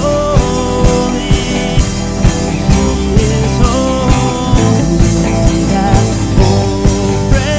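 Live worship band playing a rock-style song: drum kit keeping a steady beat under acoustic guitar, electric guitar and bass guitar, with a lead voice singing.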